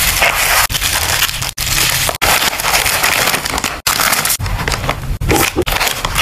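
Bubble wrap crinkling and crackling as it is folded and pressed around a small package, then the plastic rustle of the wrapped bundle being slid into a poly mailer bag. The noise is broken by a few abrupt, very short gaps.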